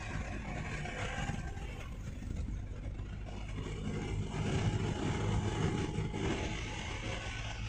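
Vehicle engine and road noise heard from inside the cabin while driving. The engine hum grows louder for about three seconds in the middle, then eases back.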